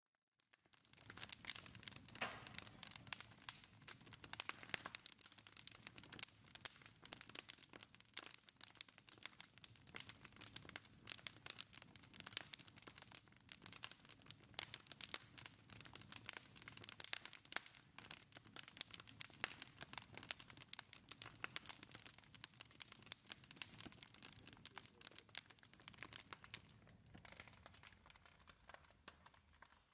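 Wood fire crackling, with a faint, dense stream of irregular pops and snaps.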